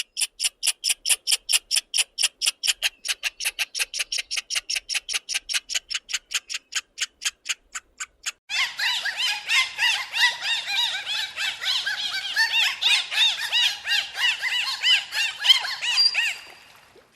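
Squirrel chattering: a fast, even run of sharp high chirps, about five a second. About eight seconds in it gives way abruptly to dolphins, many overlapping rising-and-falling whistles with clicks, which fade out near the end.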